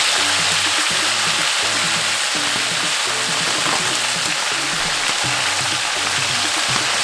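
Red snapper deep-frying in hot oil: a steady, dense sizzle of bubbling oil. Background music with a regular beat plays under it.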